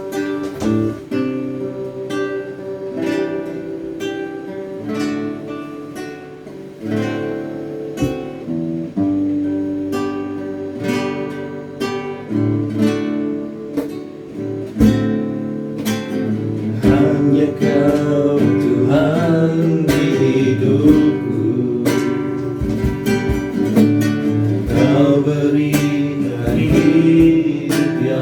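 A Christian praise and worship song: acoustic guitar picking and strumming, with a voice starting to sing about halfway through.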